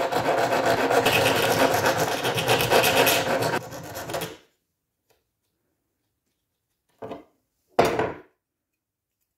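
Metal file rasping in rapid strokes across the tip of an Opinel chef's knife's hard steel blade, filing the point off to blunt it. The rasping stops abruptly about four seconds in, and two brief sounds follow near the end.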